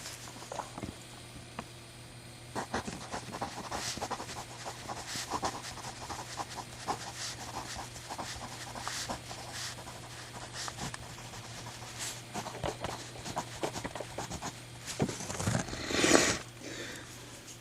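Scattered small clicks and taps of an AutoPoint-made mechanical pencil being handled and its twist-and-pull lead mechanism worked, over a steady low hum. A louder breath sounds near the end.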